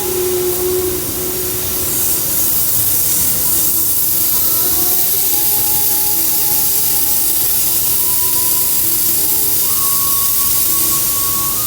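Steady, loud hiss of air blowing from a hot-air plastic welding gun.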